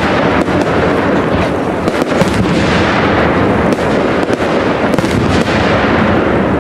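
Aerial firework shells bursting in a continuous barrage: a steady dense crackle with many sharp bangs in quick succession.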